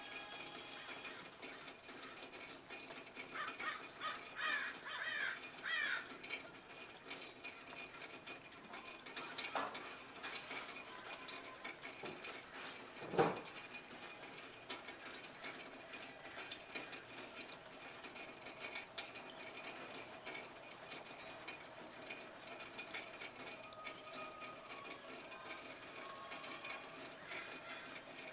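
Birds calling: a quick run of rising and falling notes a few seconds in, with fainter calls later. About halfway through there is one short, louder sound.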